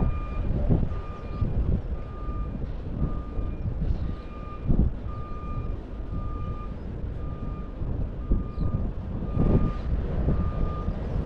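A vehicle's reversing alarm beeping steadily at one pitch, about two beeps a second, over gusting wind buffeting the microphone.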